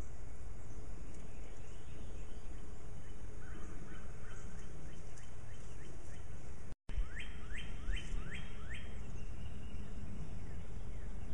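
Outdoor background with a steady low rumble of wind on the microphone; a bird calls faintly a few times, then, just after a brief dropout midway, gives a run of five quick notes, each sweeping downward in pitch.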